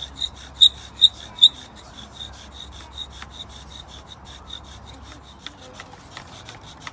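Wooden bow drill spindle squeaking as it spins against the fireboard and handhold, driven by quick, even bow strokes, about five a second, with three louder squeaks about a second in. The friction is working the spindle toward an ember.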